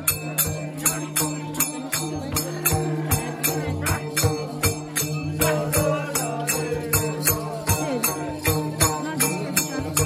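Music with a quick, steady percussion beat of about four strokes a second over a held drone, with a wavering melody line above.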